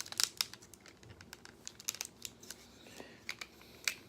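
Irregular clicks and snaps of the hard plastic parts of a Transformers Combiner Wars Sky Lynx figure being unlatched and moved by hand, with sharper clicks near the start and near the end.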